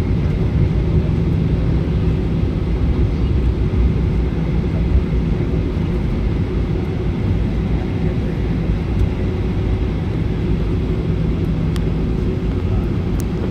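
Jet airliner cabin noise while rolling on the runway after touchdown: a steady deep rumble of engines and wheels, with a steady low hum running through it.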